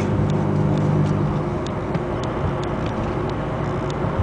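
Low drone from the 2002 VW Beetle TDI's bad passenger-side front wheel bearing, coming in at about 30 mph, over road and engine noise. Sharp ticks repeat a few times a second. The steady hum eases about a second and a half in.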